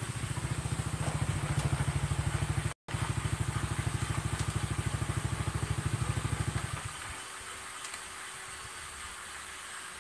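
Freshly reassembled Honda Grand motorcycle's small single-cylinder four-stroke engine running with an even putt of about ten beats a second, then shut off about seven seconds in.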